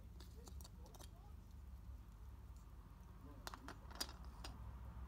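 Small plastic toy pieces clicking and tapping as they are handled and set down on a wooden floor: a couple of light clicks about half a second in, then a short cluster of sharper taps around the fourth second.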